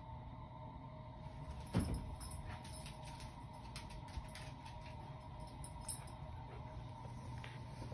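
Faint metallic jingling, like a dog's collar tags, as a Shiba Inu moves about, over a steady low hum. A single sharp knock about two seconds in, with light clicks scattered after it.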